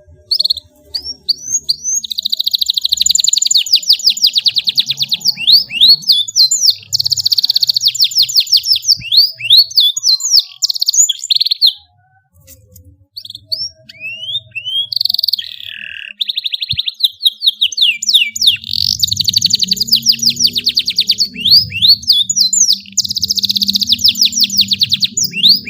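Domestic canary singing a long song of fast trills and rolling high phrases, with a break of about a second near the middle before it starts again.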